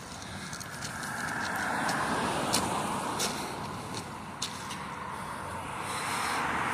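Road traffic passing, a rushing sound that swells about two seconds in, eases off, and builds again near the end, with a few sharp clicks in between.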